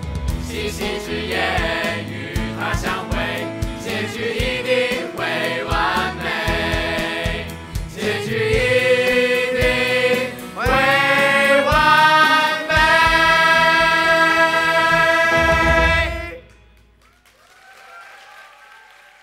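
Musical theatre cast singing the closing number in chorus over accompaniment with a steady beat, building to a long held final chord that cuts off about sixteen seconds in.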